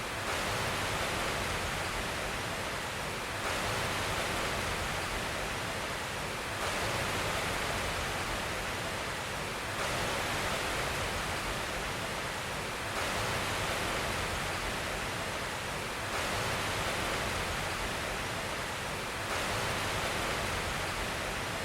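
Steady rushing noise, like hiss or running water, with no speech or tones, shifting slightly in level about every three seconds.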